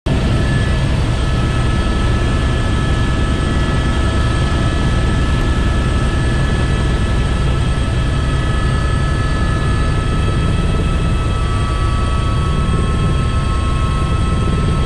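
Helicopter running in flight: a fast low beat from the rotor under a steady high turbine whine.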